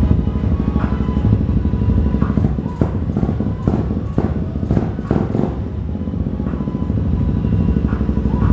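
Yamaha Grand Majesty 250 scooter's single-cylinder four-stroke idling through an aftermarket Devil muffler, a steady deep exhaust pulse. A handful of sharp clicks sound in the middle.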